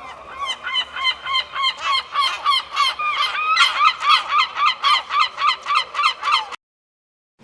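A bird calling over and over, about three to four calls a second, each a short pitched call. The calls cut off abruptly about six and a half seconds in, leaving silence.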